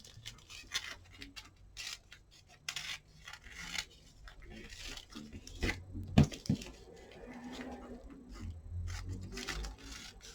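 Rustling and small clicks of fabric and sewing tools being handled, with a sharp knock about six seconds in.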